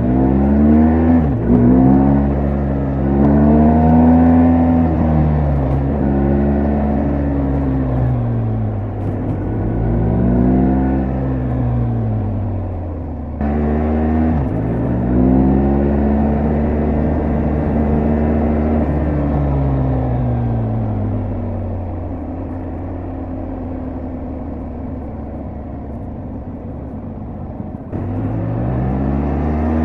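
BMW R1250GS Adventure's boxer-twin engine and exhaust while riding. The engine note climbs repeatedly under throttle and drops suddenly at gear changes. Later it settles to a steadier, lower cruise before picking up again near the end.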